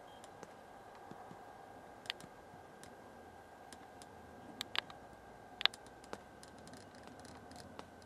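Faint steady hum with scattered sharp clicks, the loudest about two, four and a half and five and a half seconds in: handling noise on a hand-held camcorder as it pans. The distant freight train is not clearly heard.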